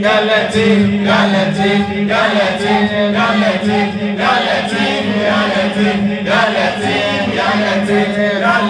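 A man chanting into a handheld microphone, his voice carried over a PA with a steady low hum beneath it.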